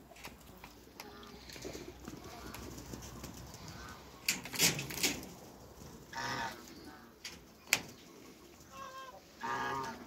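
Farmyard poultry calling: a short call about six seconds in and two more near the end. Sharp knocks and rattles come around the middle, the loudest at about four and a half seconds.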